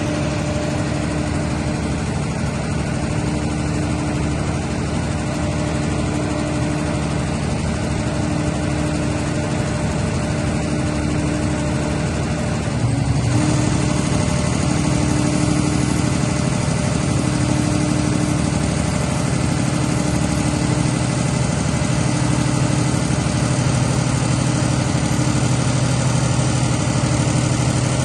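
220 kVA Cummins diesel generator set running steadily. About halfway through, its sound gets a little louder and deeper, and it then stays steady.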